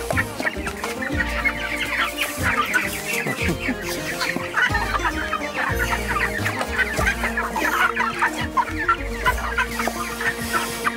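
A box full of young chickens cheeping and clucking, many short high calls overlapping without a break. Background music with steady held notes and a low bass runs underneath.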